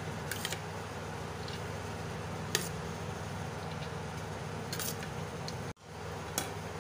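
Steady background hum with a few faint, sharp clicks as boiled basmati rice is poured in a layer into a steel pot. The sound drops out for an instant near the end.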